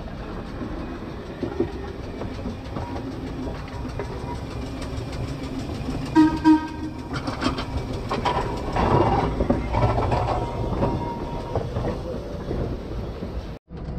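Steel streetcar wheels rolling slowly over a newly installed track switch, a steady low rumble with clicks and clunks as the wheels cross the switch's joints, loudest in the middle of the passage. About six seconds in come two short, loud pitched blasts.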